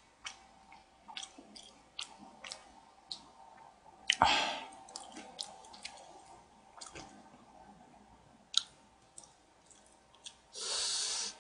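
Eating sounds: chewing with scattered small clicks of chopsticks against a foam takeout bowl, a louder knock about four seconds in, and a short hiss near the end.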